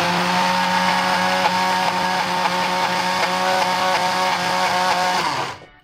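Small electric food processor grinding roasted peanuts into a paste. The motor spins up at the start, runs steadily at one pitch for about five seconds, then winds down and stops.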